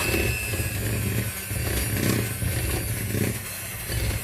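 Electric hand mixer beating thick biscuit dough, a low, uneven rumble that swells and dips about twice a second as the beaters work through the mixture.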